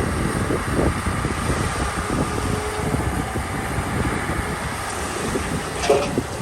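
Komatsu D31 bulldozer's diesel engine running steadily, with irregular knocks and one sharp knock near the end.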